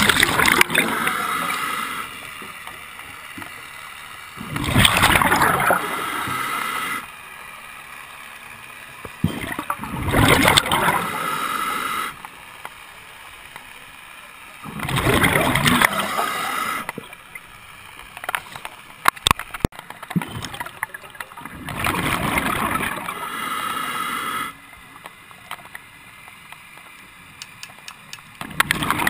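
A scuba diver breathing through a regulator underwater, heard from a camera near the diver's head. Each breath is a loud rush of bubbles and hiss, coming regularly about every five to six seconds, with a quiet pause between breaths.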